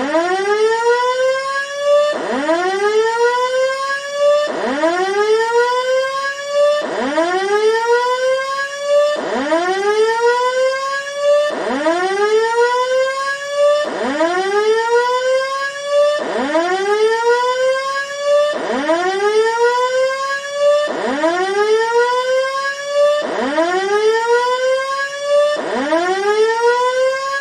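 Electronic siren sound from a chip-on-board siren sound IC for fire alarms: a buzzy wail that climbs quickly, levels off, then drops back and climbs again, repeating about every two and a quarter seconds.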